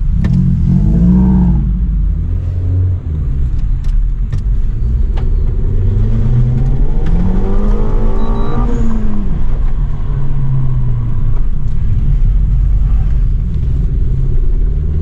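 Renault Megane RS Trophy's 1.8-litre turbocharged four-cylinder heard from inside the cabin, pulling away from a standstill. The revs climb, dip briefly about two seconds in, and climb again to a peak about eight or nine seconds in, then fall away as the car slows.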